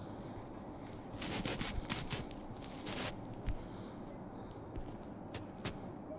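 Small birds chirping: several short, high calls that drop in pitch, mostly in the second half. Before them comes a stretch of rustling, fluttering noise.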